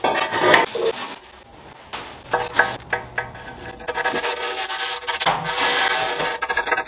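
Scratchy rubbing of a carpenter's pencil drawn along the edge of a tile to mark a cut line: a few short strokes, then a longer continuous stroke.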